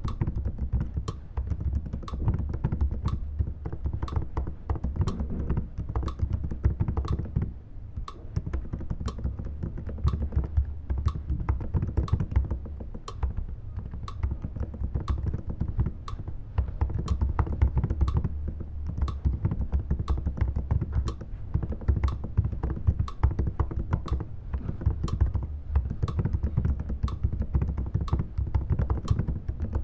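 Fingers typing on a computer keyboard: a quick, irregular run of key clicks that goes on and on.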